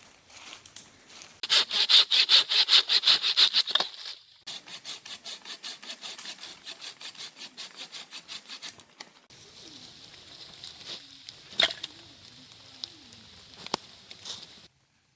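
Hand saw cutting wood in quick, even back-and-forth strokes, about five a second. The strokes are loud for a couple of seconds, then softer for several more. A faint hiss with a few sharp clicks follows.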